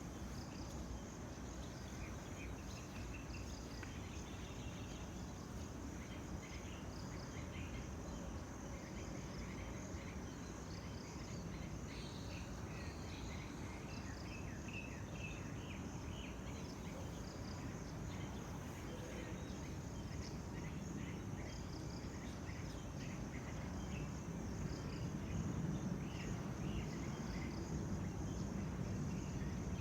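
Tropical outdoor ambience: a steady high insect drone with scattered short bird chirps over it, and a low rumble of background noise that gets louder near the end.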